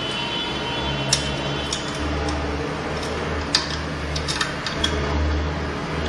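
Sharp metal clicks and taps, irregular and about half a dozen in all, as a steel crimping die is handled and fitted into the jaw of an electric terminal crimping machine. A steady low hum runs underneath.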